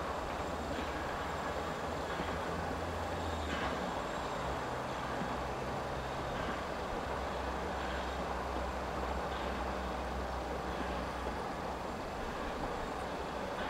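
Narrow-gauge steam train running across the valley, heard from far off as a steady rumble with a low drone underneath and faint soft beats about every second and a half.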